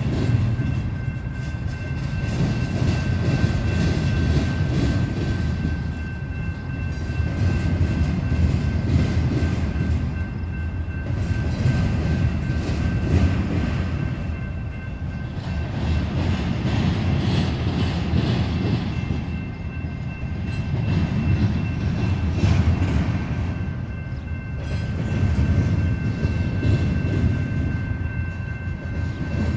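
Union Pacific double-stack container freight train rolling past: a continuous low rumble of cars on the rails that swells and eases every few seconds, with a couple of faint steady high tones over it.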